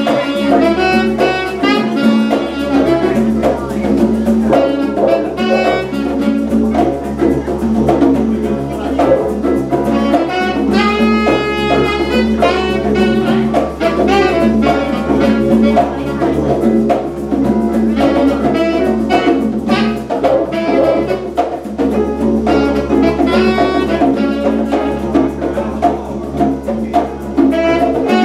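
Live jazz jam: a saxophone plays a moving melody line over hand drums, with a didgeridoo droning steadily underneath.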